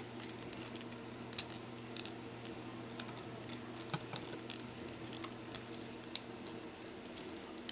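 Small plastic clicks and taps at irregular intervals from a Transformers Deluxe Class Ratchet action figure as its parts are handled and rotated during transformation, over a faint steady hum.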